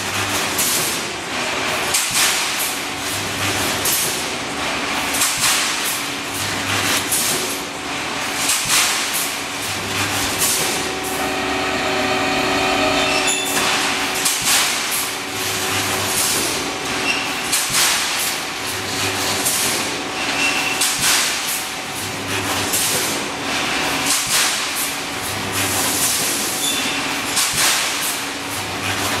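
Automatic rebar mesh welding machine running: steel bars clank and clatter continually over a steady machine hum. A short low buzz recurs about every three seconds, once for each weld cycle.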